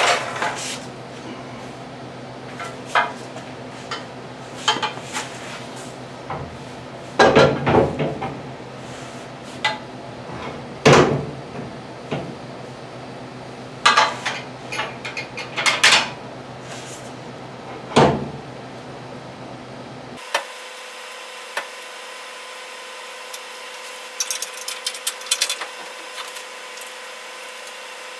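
Steel lower control arm and its bolts knocking and clanking against the truck's front frame crossmember as the arm is fitted: a series of scattered sharp metal knocks. About two-thirds through, the background changes to a steady hum, with a short run of light clicks a little later.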